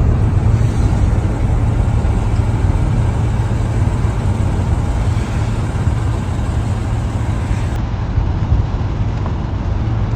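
Steady low rumble with hiss over it: a running vehicle's engine and road noise.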